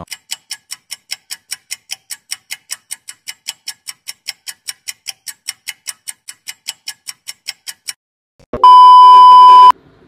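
Ticking sound effect added in editing, about five sharp ticks a second for some eight seconds, marking a time skip. After a brief gap comes a loud steady beep tone about a second long.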